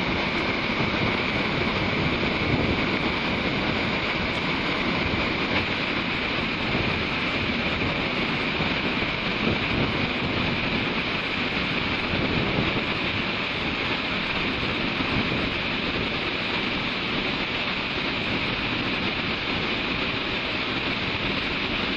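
Waterfall pouring steadily into its pool: a continuous, unbroken rush of falling water.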